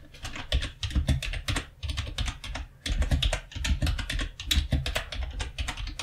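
Typing on a computer keyboard: a fast, uneven run of key clicks that starts about half a second in.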